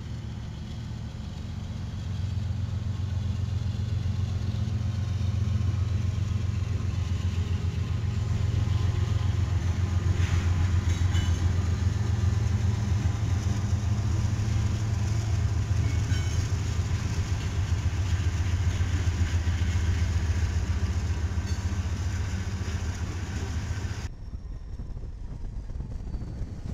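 Several diesel-electric freight locomotives running past under power, a steady low engine drone that builds over the first several seconds and then holds, with a few light clicks from the passing train. Near the end it cuts abruptly to a quieter sound of a single diesel locomotive moving slowly.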